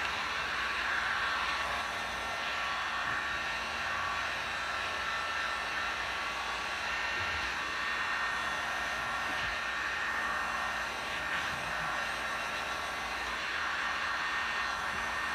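Corded electric heat gun blowing steadily: an even airy rush with a faint high whine.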